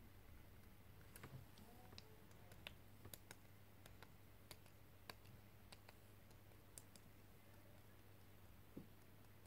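Near silence: room tone with a steady low hum and faint, scattered clicks at irregular intervals.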